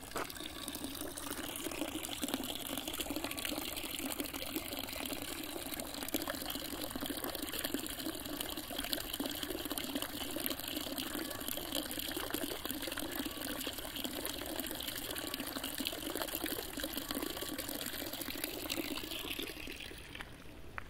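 A stream of water from a stone fountain spout splashing steadily into a stone basin. It drops away near the end.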